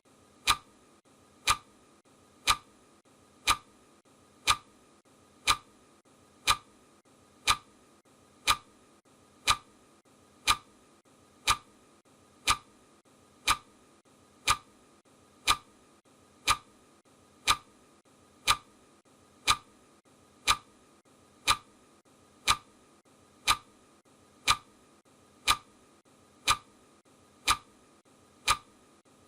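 Clock ticking sound effect of a countdown timer: one sharp tick every second, perfectly even.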